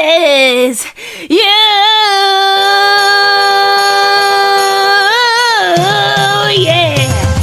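Female singing voice holding long, drawn-out notes of a Christmas pop song, with small bends in pitch and a short break about a second in. Low instrumental accompaniment comes in near the end.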